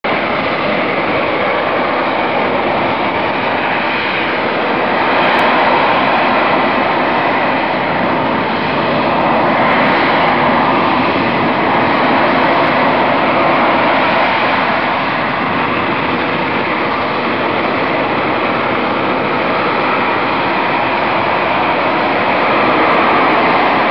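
AV-8B Harrier II's Rolls-Royce Pegasus vectored-thrust turbofan holding the jet in a hover: a loud, steady rushing jet noise that swells and eases a little now and then.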